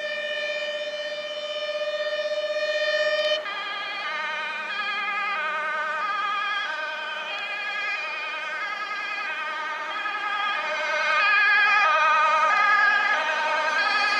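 Dutch fire engine's two-tone siren, a Mercedes-Benz Atego responding on an emergency call. It holds one steady tone for the first few seconds, then switches abruptly to alternating high and low notes about every half second, getting louder near the end as the truck approaches.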